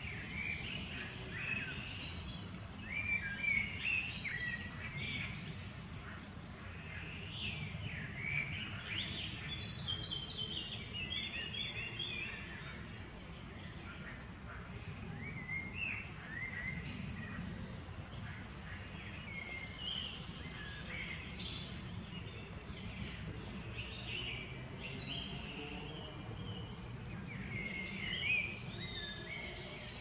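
Common nightingale singing, a continuous run of varied phrases: clear whistles, quick repeated notes and trills, changing every second or two, over a low steady background hum.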